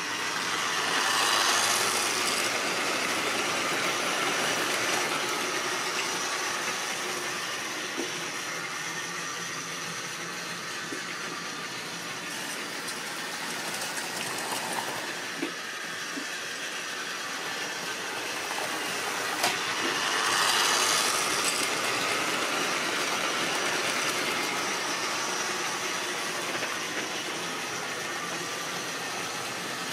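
Electric model railway trains running on sectional track: a steady motor whirr with wheels rattling over the rail joints, swelling twice as trains pass close by, about a second in and again about two-thirds through. A few sharp clicks come near the middle.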